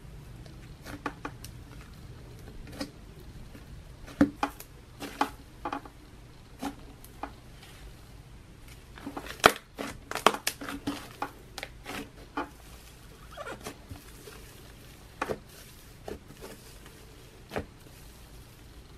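Fingers squishing and pressing pink butter slime in a plastic tub, giving irregular small pops and crackles, the sizzles of an airy, fluffy slime.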